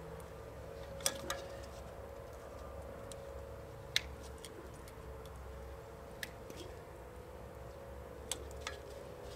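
A few sharp, scattered metal clicks of hand tools being worked at a truck's front wheel hub, about six in all, two close together about a second in and two near the end, over a steady low hum.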